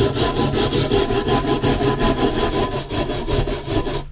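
A hand-held brass-bristled wire brush scrubbing a cast iron trivet in quick, even back-and-forth strokes, about five a second, taking off loose rust and crud. The strokes stop right at the end.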